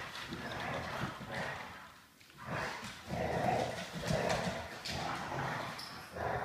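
Dogs making noise while they exercise, with a dip in level about two seconds in.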